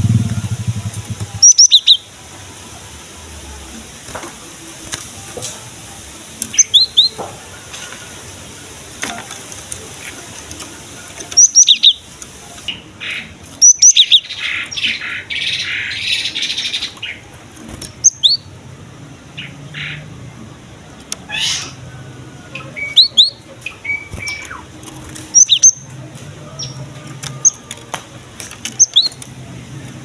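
Caged cinereous tit (gelatik batu) calling: sharp, high, short falling chirps, often in pairs, repeated every few seconds, with a scratchy rustle lasting a few seconds about halfway through.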